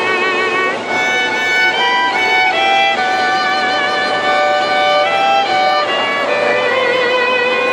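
Violins of a chamber string ensemble playing a melody in held notes with vibrato, the pitch moving from note to note every half second to a second.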